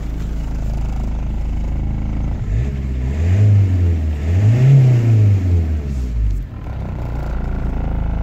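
Ford Focus Mk1 1.8 TDDi four-cylinder turbodiesel engine (BHDA, 75 hp) running, heard from inside the cabin. It is revved twice, about three and five seconds in, each time rising and falling back to a steady idle.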